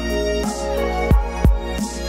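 Background music: an electronic track with heavy bass-drum beats under held synth notes.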